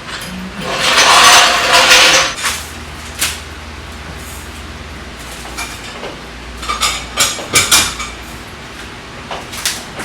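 Metal hand tools being handled during wheel work. A loud scraping rush comes about a second in, followed by scattered metallic clicks and knocks.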